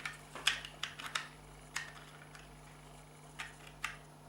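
Small hand tool clicking and scraping against the housing of a reverse light switch as it is worked open: scattered sharp ticks, about ten in four seconds, over a faint steady hum.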